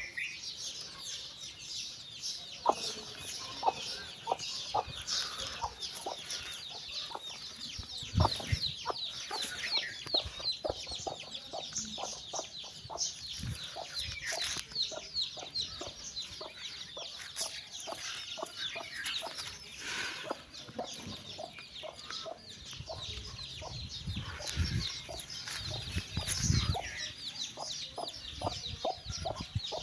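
A brood of chicks peeping constantly in high, short notes, while a mother hen clucks in short repeated notes, calling her chicks. A few low thumps are heard, the loudest about eight seconds in.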